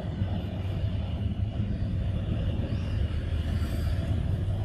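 Steady low rumbling noise, strongest at the very bottom of the range and unbroken throughout, with a faint higher hiss above it.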